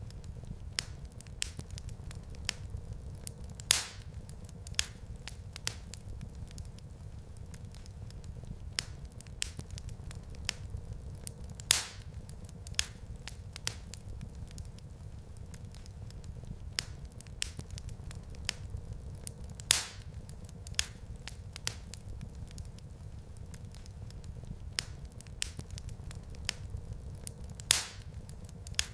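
Log fire in a fireplace crackling, with many small snaps over a steady low rumble. A louder pop comes about every eight seconds.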